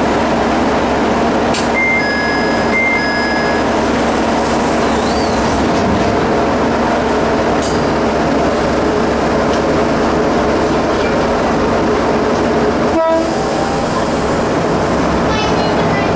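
Diesel engine of a rebuilt ex-JNR KiHa 30 railcar running steadily as the car stands ready to depart. About two seconds in, a brief high two-note signal tone sounds twice; a sharp click comes near the end, followed by a few light ticks.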